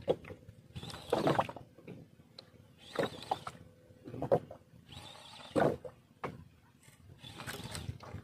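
Rod-and-reel speed jigging: short rustling, whirring bursts about every second and a half, as the rod is jerked and the reel cranked in rhythm.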